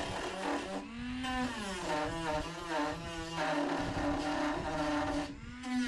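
Cordless Dremel rotary tool with a sanding drum whining at high speed as it widens slots cut in a carbon-fibre tube. Its pitch sags and recovers as the drum bears into the material, about a second in and again near the end.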